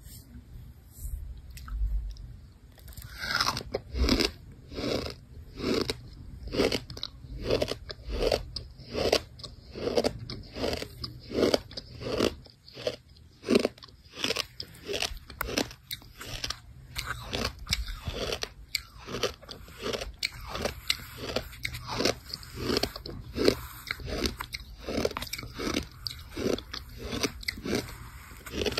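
Close-up crunchy chewing, a steady run of crisp crunches at about two a second that starts about three seconds in.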